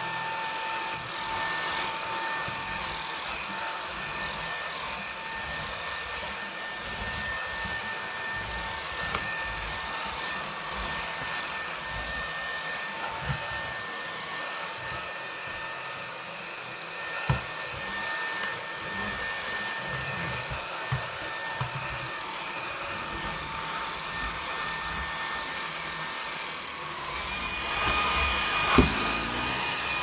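Hoover H-Free 500 Pets cordless stick vacuum running on its turbo (strongest) setting as its powered brush head is pushed over a rug: a steady motor whine over airflow noise. Near the end the whine steps up in pitch, and a couple of sharp knocks come through.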